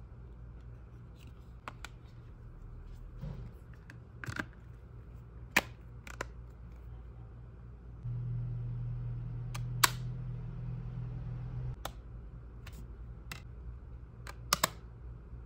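Sharp plastic clicks and taps of phone cases being handled and an iPhone being snapped into a hard case, a dozen or so scattered through. Underneath runs a low steady hum that grows louder about halfway through for a few seconds, then drops back.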